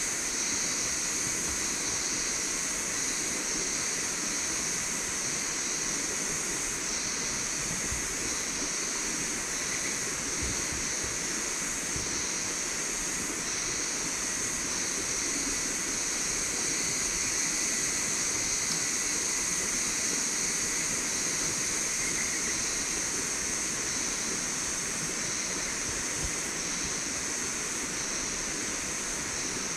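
River water rushing steadily past the bank, with a constant high-pitched drone over it.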